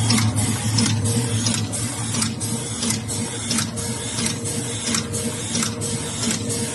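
Automatic capsule filling machine running, an even, rapid clatter of its indexing stroke repeating two or three times a second over a steady motor hum.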